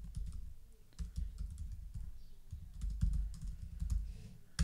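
Typing on a computer keyboard: an irregular run of key clicks as a username and password are entered, with a sharper click at the end.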